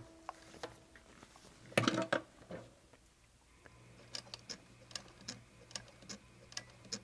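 Weaver 303 industrial leather sewing machine stitching slowly in reverse. Its servo motor hums steadily while the needle mechanism ticks about three times a second, starting a little past halfway. A couple of knocks from handling the machine come about two seconds in.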